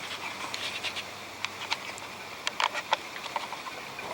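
Scattered light clicks and ticks at an irregular pace over a steady hiss.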